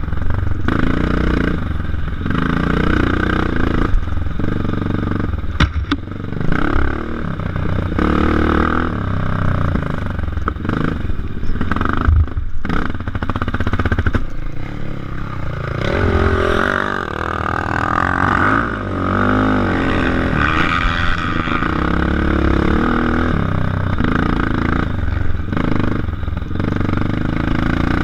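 ATV engine ridden hard along a dirt trail, its revs rising and falling with the throttle, with brief let-offs about six and twelve seconds in.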